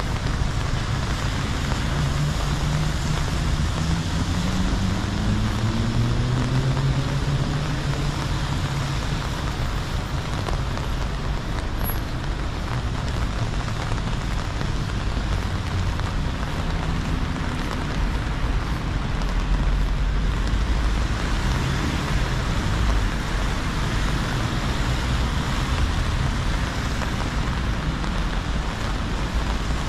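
Heavy rain falling steadily, with a vehicle engine rising in pitch over the first several seconds and a low rumble swelling about twenty seconds in.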